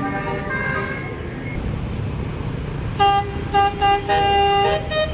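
Tour bus's musical basuri telolet horn playing a tune: a few short toots about three seconds in, then a longer held note, over steady engine and crowd noise.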